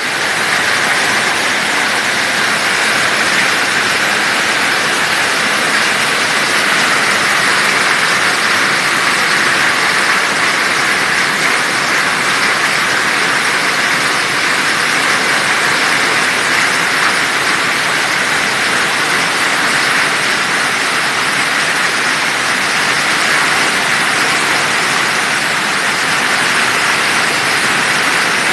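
Heavy rain pouring down, a loud steady hiss of water.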